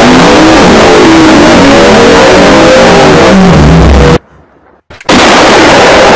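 Heavily distorted, clipping blast of noise at full volume, with a wavering pitch underneath. It cuts off abruptly about four seconds in, and a second blast of about a second follows near the end.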